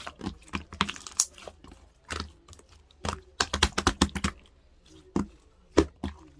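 Two-layer slime being squeezed and poked by hand, giving bursts of sharp clicking and popping. The clicks come thickest about three to four seconds in, with one loud pop near the end.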